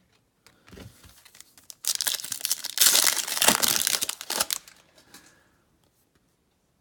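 Foil trading-card pack wrapper crinkling and tearing, loudest for about three seconds in the middle, then dying away.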